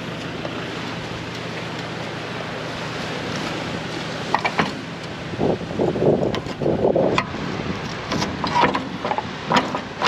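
Steady wind and surf noise, then from about four seconds in a run of metal clanks and rattles as an aluminium boat trailer's beach-launch drawbar is fitted to the tow coupling and its safety chains are handled.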